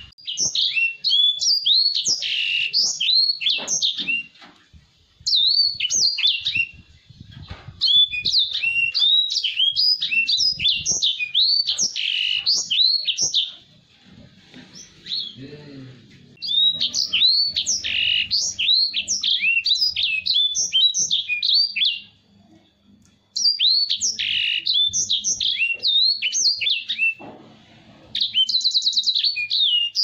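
Caged edel sanger singing a loud, fast song of high chirps and quick rising and falling whistled notes, in phrases several seconds long broken by short pauses. Near the end comes a quick buzzy trill.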